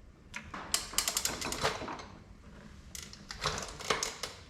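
Two bursts of rapid metallic clicking, each lasting about a second, from hand work on the tractor's rear housing.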